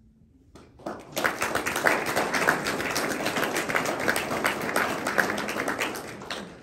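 Audience applauding, the clapping starting about a second in and dying away near the end.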